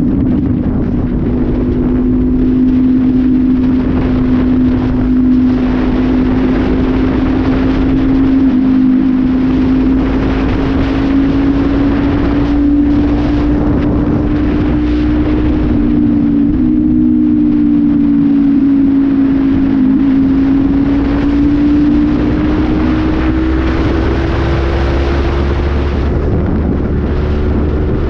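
Honda CB500F parallel-twin engine through a Pure Sound aftermarket exhaust, running at a steady highway cruise, its note rising gently in the last several seconds, with wind noise.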